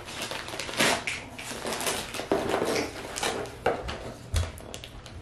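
Christmas wrapping paper being torn and peeled off a gift box by hand: irregular rustling and crinkling broken by short ripping crackles.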